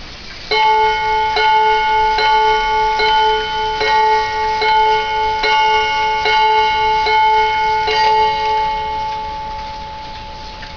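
Montgomery Ward schoolhouse pendulum wall clock striking the hour, set off by the minute hand being moved to twelve: about ten single chime strikes a little under a second apart. Each strike rings on, and the ringing fades away after the last one.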